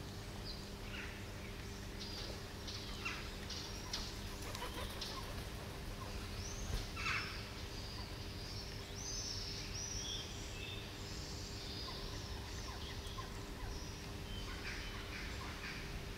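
Outdoor ambience: small birds chirping now and then over a steady low hum, with faint soft ticks from kittens eating out of a plastic tub.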